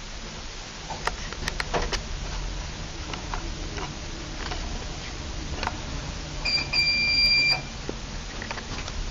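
Lift car travelling in its shaft with a steady low running noise, a few sharp clicks about one to two seconds in, and a single electronic beep lasting about a second a little past the middle.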